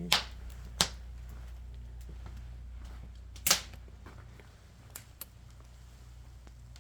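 Burning firewood popping and cracking: a few sharp separate pops, the loudest about three and a half seconds in, then two small ticks, over a steady low hum.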